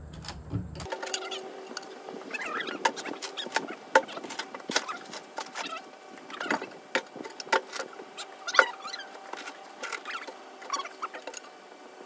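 Cant hooks clicking and knocking against a cypress log and the steel sawmill bed at irregular intervals, with short squeaks, as the log is set up to be turned.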